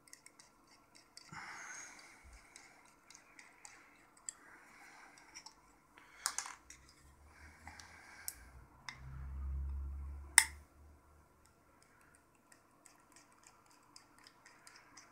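Small screwdriver working the tiny screws that hold the dial on a Smiths RVI tachometer: faint scraping and ticking of the tool in the screw heads, with a few sharper clicks about six, eight and ten seconds in. A low dull thump of the gauge being handled comes just before the last click.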